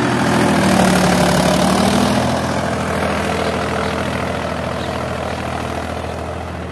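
Mahindra 265 DI XP Plus tractor's three-cylinder diesel engine running steadily under load, throttle set at 1700 RPM, as it pulls a tine cultivator through the soil in third low gear. It grows gradually fainter as the tractor pulls away.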